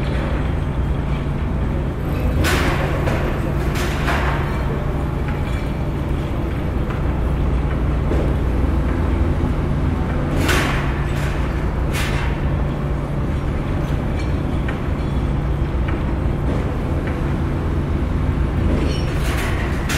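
Heavy construction machinery at a pile-driving site running steadily with a deep engine rumble, broken by about five short, sharp clanks spread through the stretch.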